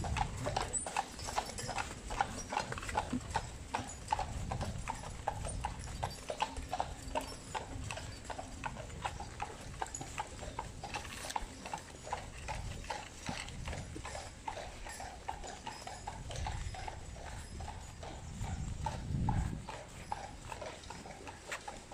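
Hooves of a team of draft horses pulling a carriage, clip-clopping at a steady walking rhythm on a paved road, gradually fading as they move away.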